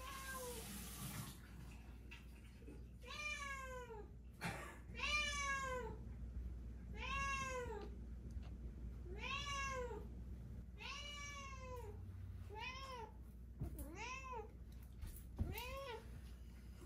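Domestic cat meowing over and over, eight or nine rising-and-falling meows about two seconds apart, the last few shorter. The cat is demanding attention and asking to be petted.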